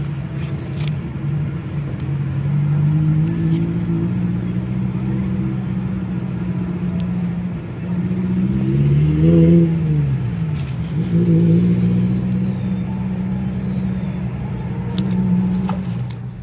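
An engine running steadily with a low hum, its pitch rising and falling once about nine seconds in as it speeds up and slows down, with a few faint clicks near the start and near the end.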